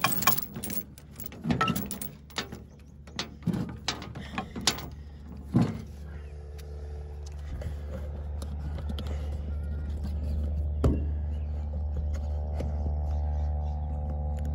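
Steel tie-down chain and binder clanking and rattling as they are handled in a string of sharp knocks. After about six seconds a steady engine hum comes in and slowly grows louder, then holds steady, with one more sharp clank near the end.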